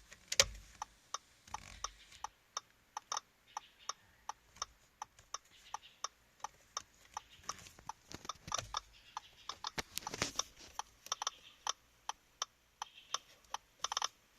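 Audi A6 C6 turn signal ticking at a rate of about two to three ticks a second, unevenly spaced with some doubled ticks. This erratic signalling is put down to a faulty turn signal stalk switch.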